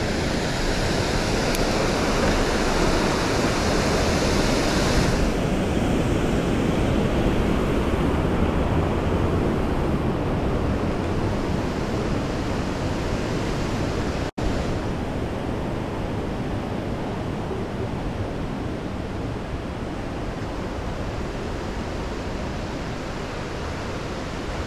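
Steady rush of wind noise on the action-camera microphone while riding, mixed for about the first five seconds with the rushing water of a small river waterfall, whose bright hiss then falls away. The sound cuts out for an instant about fourteen seconds in.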